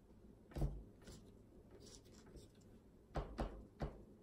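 A pen drawing on a paper plate: several short scratching strokes, with a soft thump of the plate being handled about half a second in.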